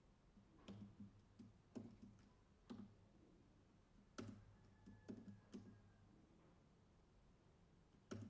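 Faint, scattered keystrokes on a computer keyboard: about a dozen separate clicks in irregular groups, then a pause of about two seconds and one more click near the end.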